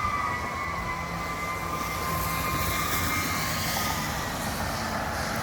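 Fire engine siren tone sliding slowly lower and fading out over the first few seconds, with the truck's engine running low and steady underneath.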